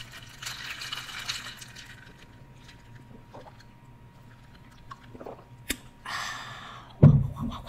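Close-miked sipping of an iced drink through a straw, with a hissy slurp in the first couple of seconds. Another airy slurp or breath comes near the end, followed by a short low thump.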